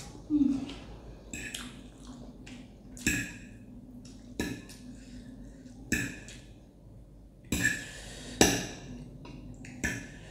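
Close-up eating sounds of someone eating very spicy instant noodles: chewing, lip smacks and sharp breaths through pursed lips, in about seven separate bursts, with a short low hum about half a second in.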